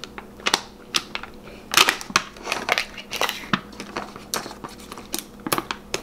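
Foil seal being peeled and torn off the top of a Pringles can: irregular crinkling and sharp crackles of the foil membrane.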